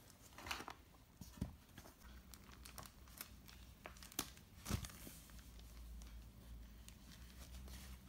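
Faint crinkling and rustling of a clear plastic bag, with scattered light clicks and taps as small hard plastic toy pieces are handled and set down.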